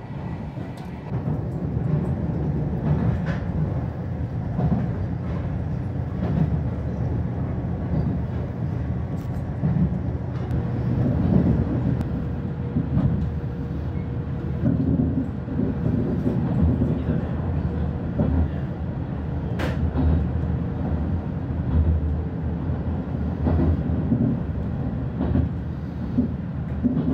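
Running noise of a 12-series passenger coach on the move: a steady low rumble of wheels on rail with scattered clicks and one sharp click about two-thirds of the way through.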